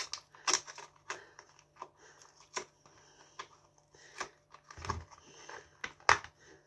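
Plastic food tub being handled and opened: the packaging crackles and the plastic lid gives a series of sharp clicks, with a dull knock about five seconds in as the tub is set on the counter.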